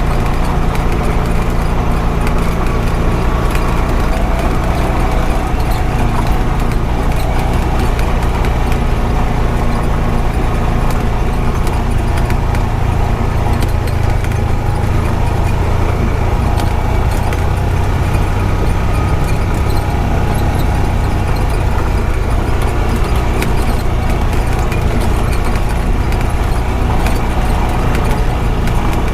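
Honda Pioneer 520 side-by-side's single-cylinder engine running steadily under way, with scattered knocks and rattles from driving over a rough dirt road.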